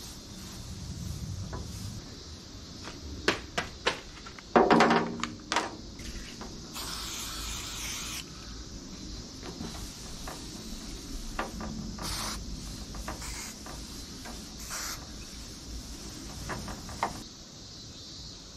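A few sharp knocks and clatters, then an aerosol spray can hissing for about a second and a half, followed by a cloth wiping over the painted engine lid.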